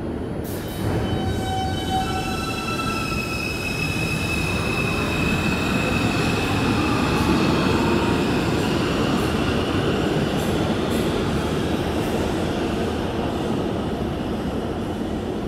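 New York City Subway train pulling out of the station and accelerating into the tunnel. Its propulsion gives several steady high tones over the rumble of the wheels. It is loudest around the middle, then fades as the train draws away.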